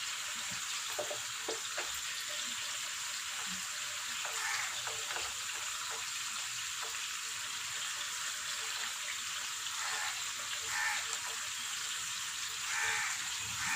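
Marinated chicken pieces frying in hot sunflower oil in a pan: a steady sizzle, with a few faint knocks as the pieces are turned over.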